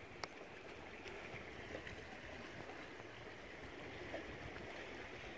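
Water lapping and trickling against a canoe's hull on calm sea, a steady soft wash, with one sharp click near the start.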